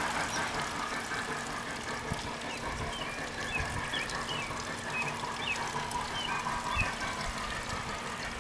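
Small garden-pond waterfall, fed by a pond pump, splashing steadily into the pond, with a few short bird chirps in the middle.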